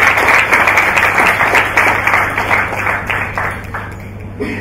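Audience applauding, a dense patter of many hands clapping that thins out and fades over the last second or so.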